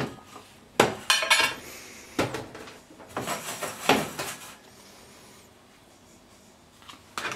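Stainless steel saucepans and kitchen utensils clinking and knocking as they are handled on the stove top. Several sharp knocks, some ringing briefly, come in the first few seconds, then a quieter stretch, then more clatter near the end.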